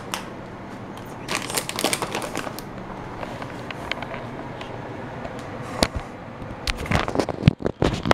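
Handling noise as kitchen things and the handheld camera are moved about: rustling and crackling, thickest about a second and a half in, with several sharp knocks near the end.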